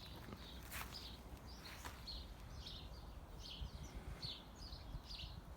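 Sparrows cheeping, faint and repeated, several short chirps a second, with a couple of soft clicks in the first two seconds.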